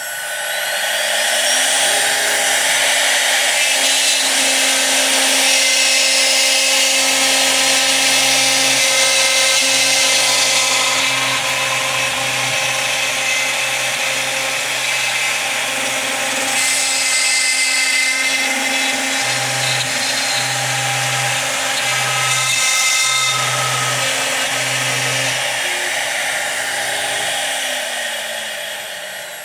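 CNC router spindle with a 1/8" single-flute compression bit cutting full-depth through 3/4" plywood in one pass, a steady high whine over dense cutting noise. The spindle winds up at the start and winds down near the end, with a pulsing low hum as the machine moves through the cut in the later part.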